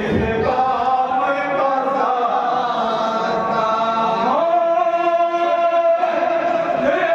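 Several men's voices chanting a marsiya, a Shia mourning elegy, in unison through a microphone, with long held notes.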